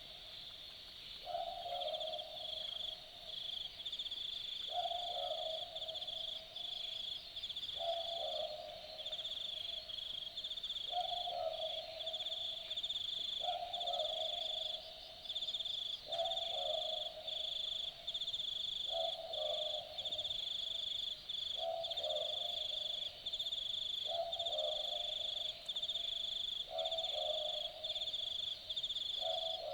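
Australian boobook owl (mopoke) giving its typical two-note 'boo-book' call, repeated steadily about every two and a half to three seconds. A steady high-pitched pulsing chorus runs behind it.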